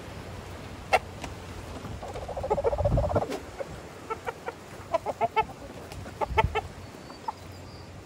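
Chickens clucking: a longer drawn-out call about two to three seconds in, then runs of short clucks from about four to six and a half seconds in. There is a sharp click about a second in.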